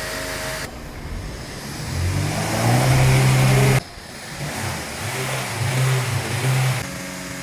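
Tata Safari engine being revved: the pitch climbs to a loud held rev that cuts off suddenly, then comes a series of shorter rev blips.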